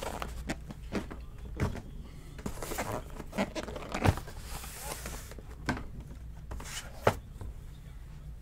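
Small cardboard trading-card hobby boxes being handled and set down in stacks on a table: a string of irregular knocks and taps, the loudest about four seconds in and again about seven seconds in, over a low steady hum.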